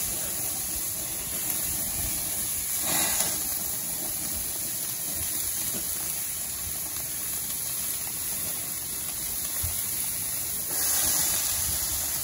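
Steaks, ground-meat patties and chicken legs sizzling on a gas barbecue grill: a steady hiss that swells briefly about three seconds in and again near the end.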